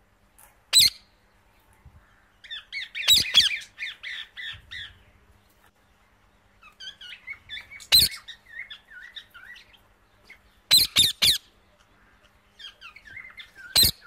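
Parrots calling: loud harsh squawks, singly and in quick pairs and threes, with rapid chattering and chirping between them.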